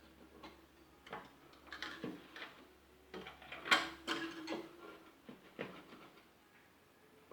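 Irregular plastic clicks, taps and short scrapes as a knife cuts off a nylon zip tie at a washing machine's belt, with one sharper snap about four seconds in.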